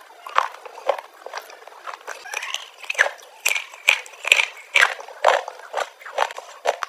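Close-miked eating sounds: wet chewing and lip smacking on a spoonful of creamy fruit custard with pomegranate seeds, in a quick, uneven rhythm of short sharp sounds.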